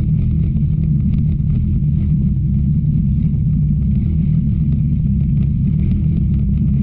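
Enduro race car's engine running at a steady speed, loud and unchanging.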